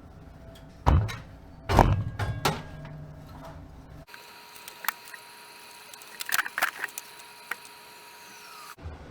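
Knocks and taps of hand work on equipment. There are two heavy knocks about a second apart near the start, then, after an abrupt change, scattered lighter clicks and taps over a faint steady hum.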